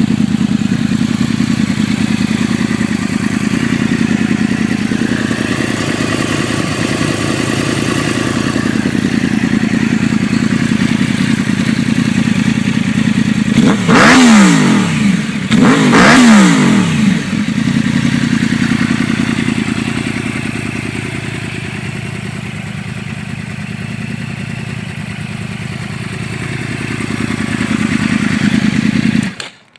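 Motorcycle engine idling, blipped twice about halfway through, each rev climbing sharply and dropping back to idle.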